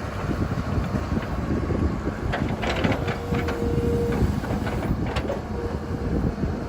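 An engine running with a steady low rumble, with a few rattles around the middle and a short steady whine about three seconds in.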